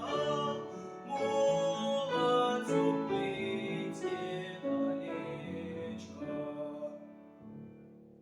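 Closing bars of a song sung with bandura accompaniment: a few last plucked chords, then the final chord rings on and fades away.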